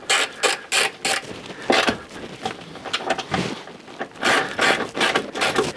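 A brush scrubbing copper grease onto a metal suspension bolt: a run of irregular scraping strokes, a couple or so a second.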